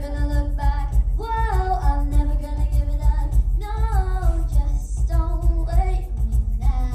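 A young girl singing a song over backing music with a steady beat, in sung phrases with held notes.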